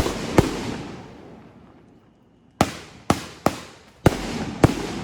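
Fireworks going off: seven sharp bangs, two at the start and five more close together from about two and a half seconds in, each trailing off in a fading rumble.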